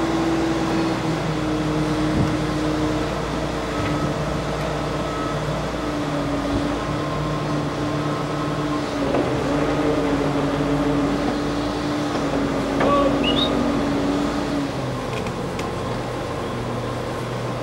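Railway crane's engine running steadily while it lowers a locomotive saddle tank onto the boiler. Its pitch steps up and down several times as the engine speed changes.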